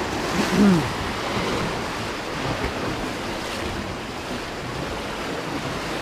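Strong sea swell washing and breaking over shoreline rocks: a steady rush of surf.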